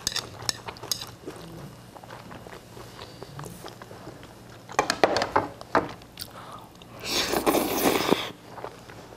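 A person eating japchae glass noodles close to the microphone: chewing with small mouth clicks, then a loud slurp of noodles lasting about a second, about seven seconds in.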